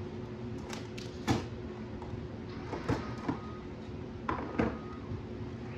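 Hard plastic clicks and knocks from handling gel blaster toy gun parts and their clear plastic packaging tray: about seven sharp knocks in uneven clusters over a steady low hum.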